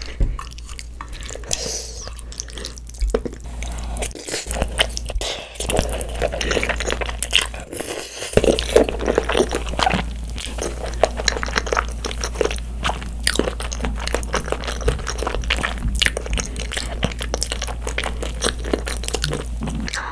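Close-miked chewing and slurping of cream pasta noodles: wet mouth sounds with many small clicks, busiest about halfway through.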